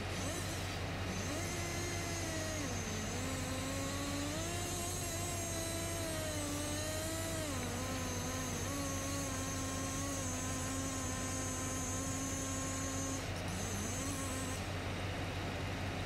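Chainsaw running at high revs, cutting through the base of a large tree trunk, its pitch dipping and recovering as the bar loads, then dropping off about three seconds before the end. Beneath it is the steady low drone of heavy machinery engines.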